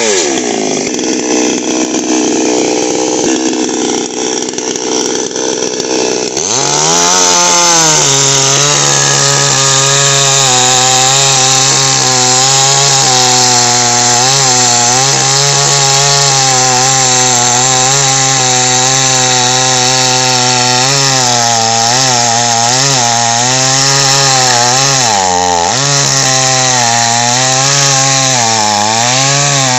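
Two-stroke petrol chainsaw cutting through hardwood. Its revs drop away at the start, then about six seconds in climb sharply and hold high, the pitch wobbling as the chain bites under load. Near the end the engine bogs down deeply once and recovers.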